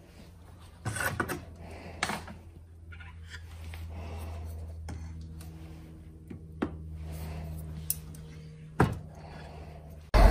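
Steel tongs clinking and knocking against an electric assay kiln and its crucible as they are worked in the open, red-hot kiln: a few separate sharp metallic clinks, the strongest near the end, over a steady low hum.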